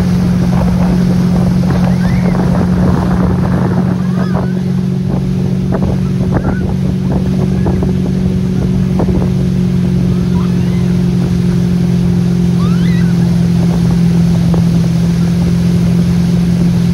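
Motorboat engine running steadily under load while towing a tube, with wind buffeting the microphone and wake water rushing behind the boat.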